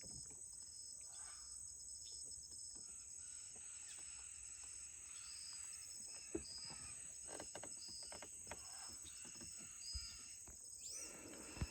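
Faint nature ambience: a steady high-pitched insect chirring, with short bird chirps now and then and a couple of faint knocks.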